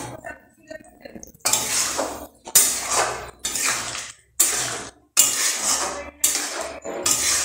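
Metal spatula stirring a wet vegetable curry in a steel kadai, scraping the pan. It comes as about seven strokes, each under a second, starting about a second and a half in.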